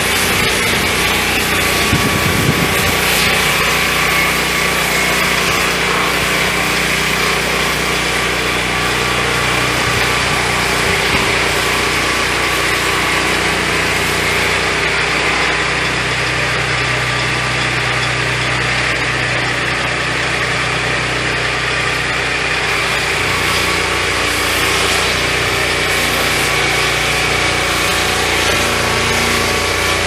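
Petrol engine of a 12-inch swingblade sawmill running steadily at high speed, spinning its circular blade as the saw head travels along the log.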